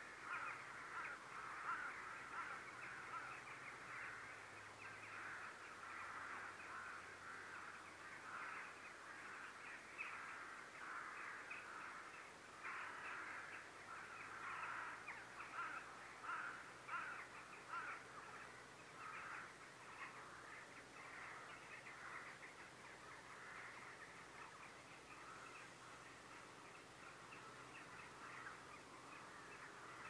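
A flock of crows cawing in many overlapping voices, heard from afar. The calls are busiest for the first twenty seconds and thin out toward the end.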